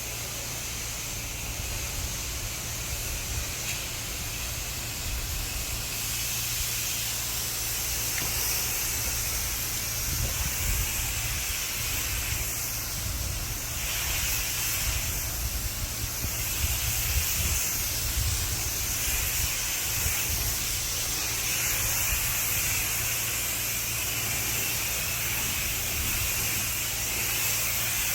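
Water spraying from a pressure-washer rinse wand against a house's walls and eaves, a steady hissing rush with a low rumble underneath, rinsing off the soft-wash soap and sodium hypochlorite.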